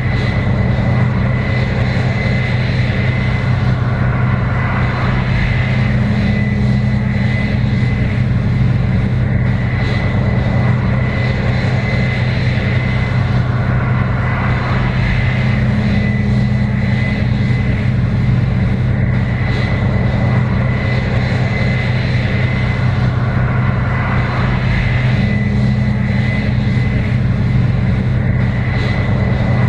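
Case IH 7120 Axial-Flow combine running steadily while harvesting corn: a loud, even diesel drone with a thin, steady high whine above it.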